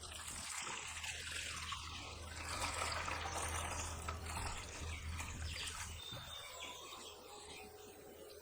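Water trickling and pouring out of the homemade washing machine's tub as it is drained after the wash, over a steady low hum.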